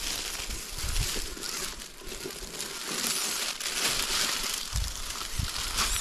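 Dry fallen leaves crunching and rustling as a small RC crawler truck and the person following it move through them, with a few dull low thumps. The crunching cuts off near the end.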